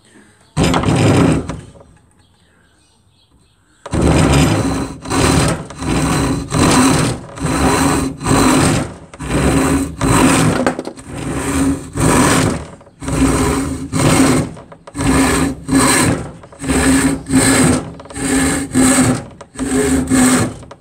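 Large Disston hand rip saw, which the owner believes is a D8, ripping a board along the grain with long full-length strokes. One stroke comes about half a second in, then a pause of about two seconds, then steady rasping strokes at about one a second for the rest.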